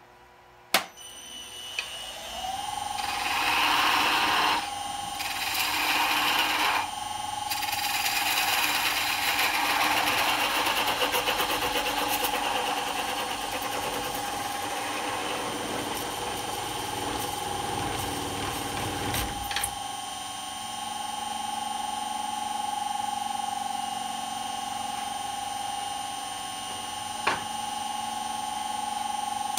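Wood lathe switched on with a click, its motor whine coming up to speed and running steadily, then winding down at the end. A parting tool cuts into the spinning birdhouse ornament with rough scraping in bursts for about 17 seconds, parting it off from the stub held in the chuck; after that only the motor whine is heard, with one more click near the end.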